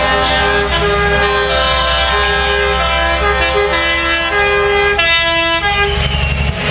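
Truck air horns sounding a run of changing notes, with one loud blast about five seconds in, over the low rumble of diesel truck engines passing close by.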